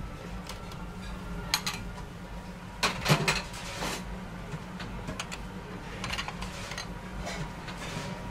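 Ceramic plates and cutlery clinking and knocking on a stainless steel kitchen counter, a few sharp knocks bunched about three seconds in, over a steady low hum.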